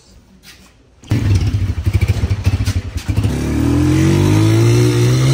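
Small motorcycle engine cutting in suddenly about a second in and running with a fast low putter. From about three seconds in it speeds up, its pitch rising as the bike accelerates.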